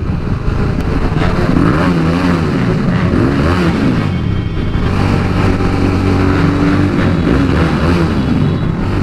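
Motorcycle engine and exhaust at road speed, revved for a sound test: the pitch rises and falls a few times, then holds steady from about halfway through.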